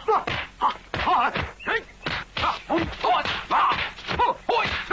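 Kung fu film fight sound effects: a rapid series of punch and block thwacks, about two or three a second, mixed with the fighters' short shouts and grunts.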